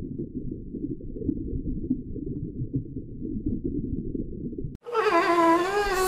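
Muffled low water noise of an underwater recording, with nothing above a low rumble. About five seconds in, it cuts to a sea lion pup calling: a loud, long, wavering cry.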